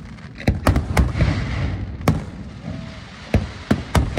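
Aerial fireworks shells bursting in an irregular string of sharp bangs, about seven in four seconds, over a continuous low rumble.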